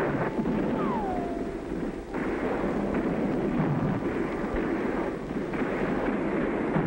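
Battle noise on an old film soundtrack: a continuous din of cannon fire and explosions, with a short falling whistle about a second in.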